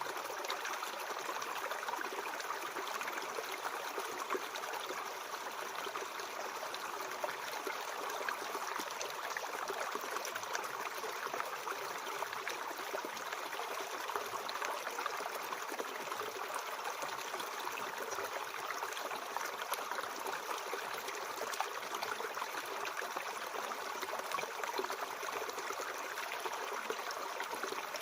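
Mountain stream flowing steadily: an even rush of water with fine splashing and trickling, with little deep rumble.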